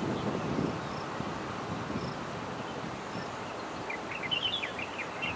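Outdoor grassland ambience: a thin, steady, high insect buzz over steady low background noise, with faint high peeps about once a second. About four seconds in comes a quick run of short, falling bird chirps.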